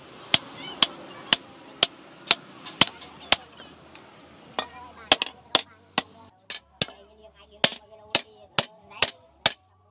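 Hand hammer forging red-hot pipe steel on a round steel post anvil: sharp blows at about two a second, with a pause of about a second just before the middle. In the second half each blow rings with a metallic tone.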